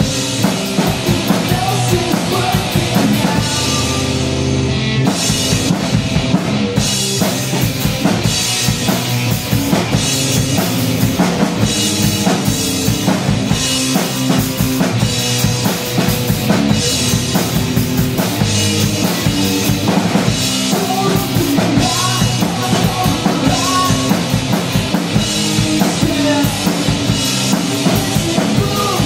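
Live rock band playing a song: electric guitar through a Marshall amp over a full drum kit with a steady beat.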